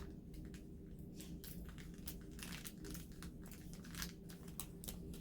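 Faint, irregular light clicks and crinkles from handling small resin diamond-painting drills and plastic containers, over a low steady hum.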